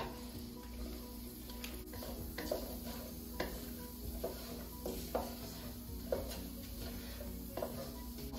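Wooden spatula stirring annatto seeds in oil in a coated frying pan: irregular scrapes and taps against the pan about once a second over a faint sizzle as the oil takes on red colour.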